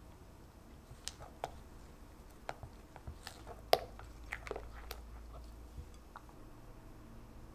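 Silicone spatula stirring powder into thick cream cheese batter in a glass bowl: soft squelching with scattered light clicks of the spatula against the glass, the sharpest about three and a half seconds in.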